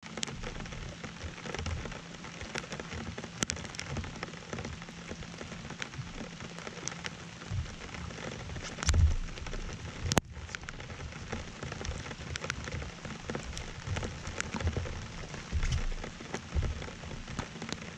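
Steady rain, with many sharp ticks of drops striking the camera and a few low thumps, the heaviest about halfway through.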